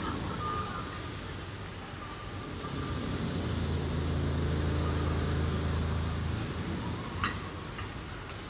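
City ambience with a motor vehicle's engine humming past; its low hum swells about two and a half seconds in and fades after about six seconds. A single sharp click comes near the end.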